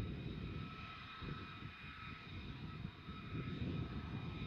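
F-35 Lightning II jet engine (Pratt & Whitney F135) running: a fluttering low rumble under a steady high-pitched turbine whine.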